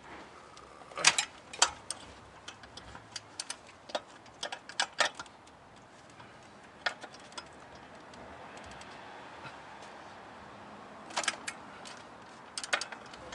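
Hand tools clicking and clinking against metal while bolts are worked loose: irregular sharp ticks and knocks, loudest about a second in and in a cluster near the end.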